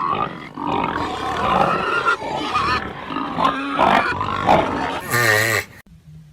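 Animals calling over one another in a dense jumble of grunts and squeals, ending with one longer wavering call about five seconds in.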